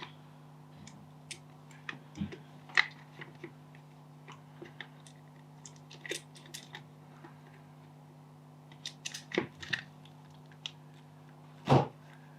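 Plastic parts of Sennheiser HD 350BT headphones being handled and fitted together: irregular small clicks and taps, with a louder knock near the end, over a steady low hum.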